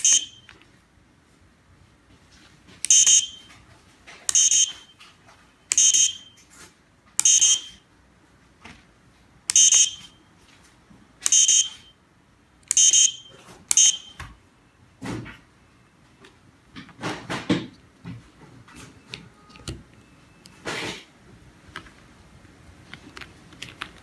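Piezo buzzer on a 433 MHz remote-control test board giving eight short, high beeps, roughly one every second and a half, then a few soft knocks from handling the board and modules.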